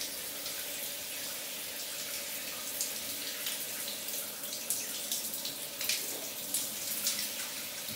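Shower running from a handheld shower head: a steady hiss of spraying water, with a few brief splashes.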